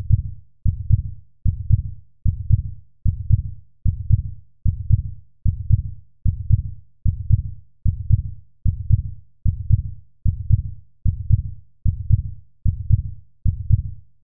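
A low, heartbeat-like pulse repeating evenly, a little more than once a second, each beat fading away before the next.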